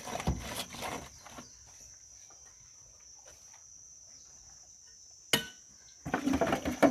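Steady high cricket trill throughout. Over it come short bursts of scraping in the first second and again near the end, and one sharp knock about five seconds in.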